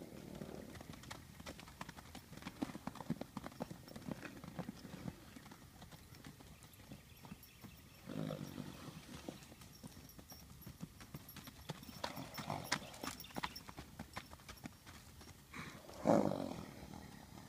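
Horses' hooves thudding and scuffing on bare dirt as two horses run and play, with many irregular knocks and heavier thuds. A louder short burst of sound comes near the end.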